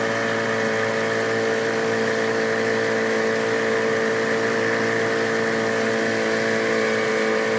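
Tiller-steered outboard motor running at a steady speed, its pitch and loudness holding level throughout, with a constant hiss over it.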